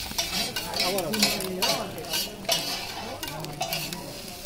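Chowmein noodles being stir-fried on a large flat griddle: two metal spatulas scrape and clack against the griddle in a quick, irregular rhythm over a steady sizzle.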